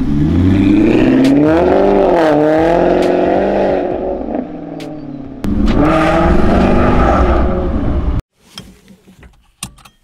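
Maserati GranTurismo MC's V8 revving as the car accelerates away, its pitch climbing and falling. About halfway it jumps to a second burst of acceleration heard from inside the cabin, which cuts off abruptly near the end.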